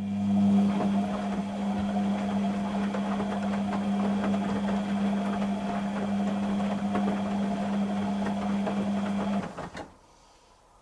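Beko WTG620M1 washing machine's drain pump running: a steady electric hum with water gurgling through it, cutting off suddenly about nine and a half seconds in.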